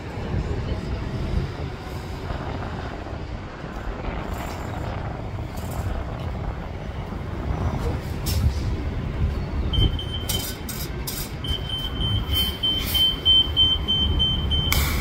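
City bus engine running close by with a low rumble of traffic. Short air hisses in the second half, and a steady high-pitched beep from about ten seconds in, ending with a loud hiss.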